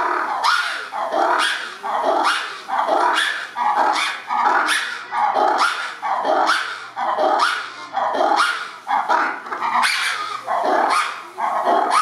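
Ruffed lemurs' loud call: a long run of harsh, barking cries, about one and a half a second.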